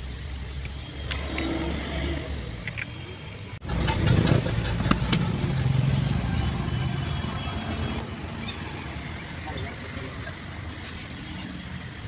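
Steel gearbox parts clicking and clinking as gears are fitted onto a truck gearbox mainshaft. Under them runs a low rumble, which swells after a sudden cut about three and a half seconds in and fades out by about eight seconds.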